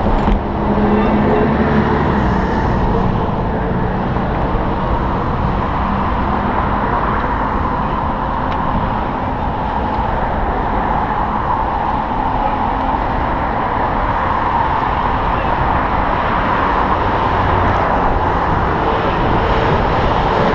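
Steady outdoor traffic and road noise, a continuous rumble with no distinct events.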